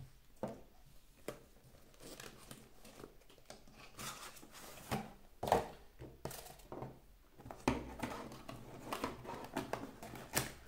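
Cardboard packaging being handled: box flaps rustling and scraping, with irregular clicks and knocks as small items are set down on a wooden table.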